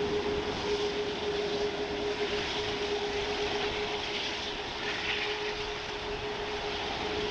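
Jet airliner engines running steadily, a constant whine-like tone over a broad rush of engine noise.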